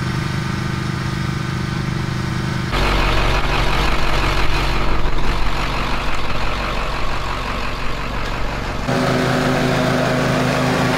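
Scag stand-on commercial mower's engine running: steady at first, then abruptly louder and rougher about three seconds in, then steady again about nine seconds in as the mower cuts grass.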